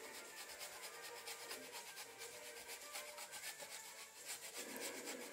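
Block of jaggery being grated on a metal box grater: a fast, even run of faint rasping strokes.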